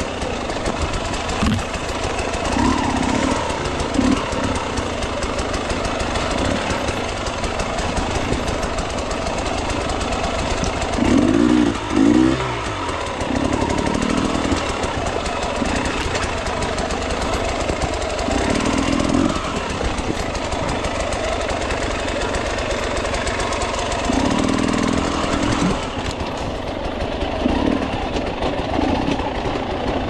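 Enduro dirt bike engine running at low speed while the bike picks its way over rocks, with short bursts of revving every few seconds. The strongest rev comes about eleven to twelve seconds in.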